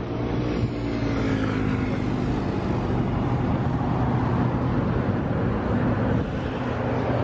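Steady low rumble of outdoor street noise, with a faint steady hum running under it.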